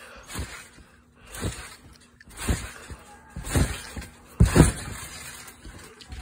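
A trampoline mat thumping under a bouncing jumper, about once a second and growing louder. A flip ends in the loudest thud as he lands flat on his back, about four and a half seconds in.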